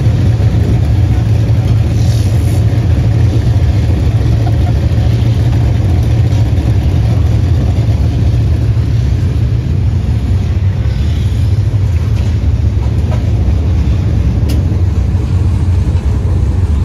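An engine running steadily, a loud low drone that holds even throughout.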